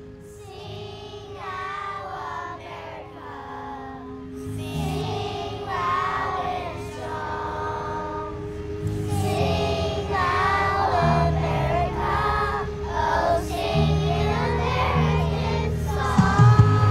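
A choir of young children singing a song over instrumental accompaniment with steady low bass notes.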